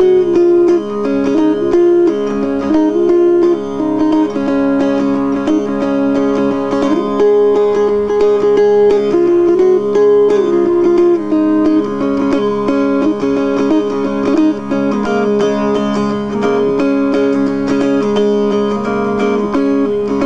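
Music with plucked string instruments: a fast picked melody stepping over steady sustained notes.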